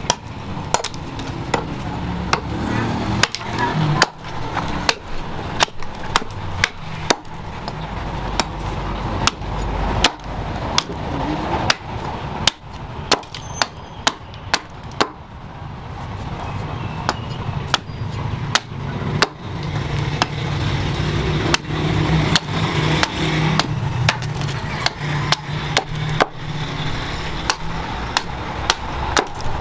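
Small axe chopping into the end of a wooden pole to shape an axe handle: a steady run of sharp chopping strikes, about one or two a second, as chips split off the wood.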